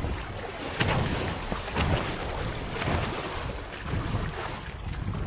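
Water rushing and slapping against the catamaran's wave-piercing bows as they cut through a powerboat's wake, with a surge of splash about once a second as each wave meets the hulls.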